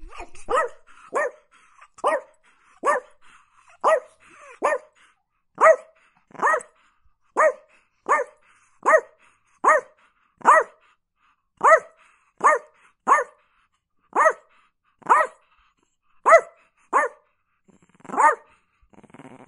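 Chihuahua barking steadily: short, high-pitched barks repeated a little over once a second at an even pace.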